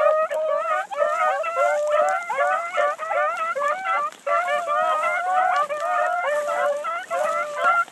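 A pack of hounds in full cry, many dogs baying and bawling at once in an unbroken, overlapping chorus.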